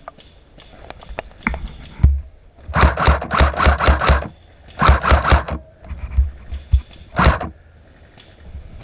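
Airsoft electric gun firing full-auto in three bursts of rapid clicks: a long burst about three seconds in, a shorter one about five seconds in, and a brief one near the end. A single sharp knock comes just before the first burst.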